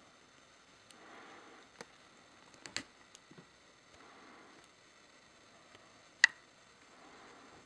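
Handling noise from a handheld camera: soft rustles over a quiet room hush, with a few scattered sharp clicks, a small cluster about two and a half seconds in and one much louder click about six seconds in.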